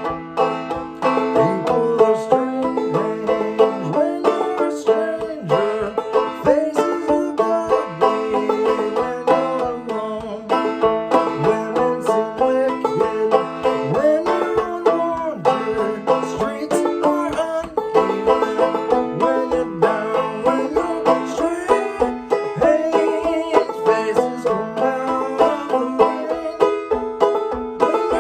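Five-string banjo played clawhammer style in A minor tuning. It plays a melody of quick plucked notes with brushed strums and occasional slides in pitch.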